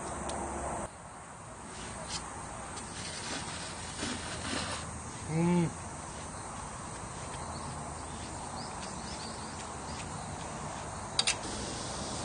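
A man eating ramen noodles: a short slurping, noisy patch, then a brief wordless voice sound that rises and falls (a hum or 'mm'), over steady outdoor background noise, with a couple of sharp clicks near the end.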